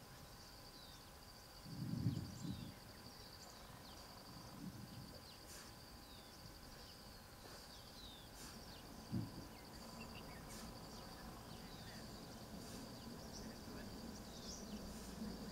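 An insect trilling steadily on one high pitch, with scattered short bird chirps. Two low thumps, the loudest about two seconds in and a smaller one about nine seconds in.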